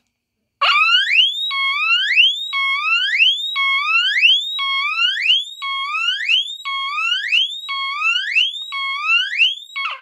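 The electronic piezo horn of a 1977 Teledyne Water-Pik D-2 SonicSiren smoke detector sounds its alarm on test. It is a pretty loud, repeating whoop tone: each cycle holds a low note, then glides up in pitch, about once a second. It starts about half a second in and cuts off at the end when the test button is released.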